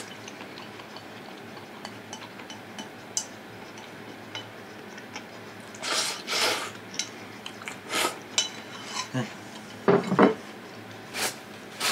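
Eating utensil scraping and clinking against a donburi rice bowl in short scattered strokes, with a louder pair of knocks about ten seconds in.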